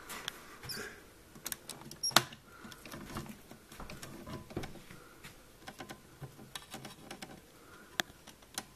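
Scattered light clicks and scratching of a feeder mouse on a string scrabbling and knocking against terrarium glass, with one sharper knock about two seconds in.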